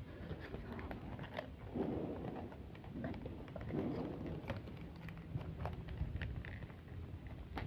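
Paper being handled and folded: soft rustling with scattered small crackles and clicks, swelling twice.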